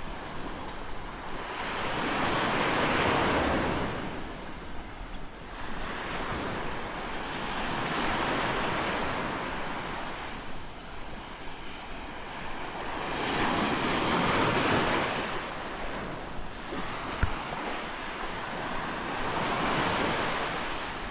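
Small waves breaking and washing up a sand beach, the surf swelling and fading four times, with wind buffeting the microphone. A brief thump comes about three quarters of the way through.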